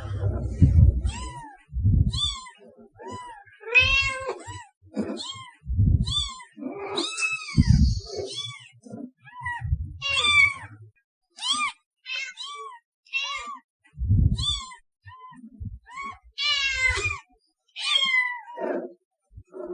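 Cat meowing over and over: a fast run of short meows, each rising and falling in pitch, with a few low thuds among them.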